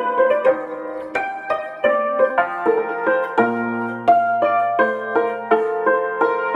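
Țambal (concert cimbalom) played with two beaters in a classical sonata movement. Quick runs of struck strings ring on into one another, over a low note held from about halfway.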